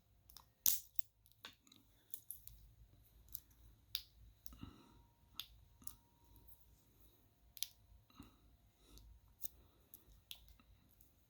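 Smiths Everest PRS-25 bracelet clasp being snapped open and shut by hand, a string of irregular sharp metal clicks. The clasp hook has just been bent tighter to stop it popping open, and it is still clicking open.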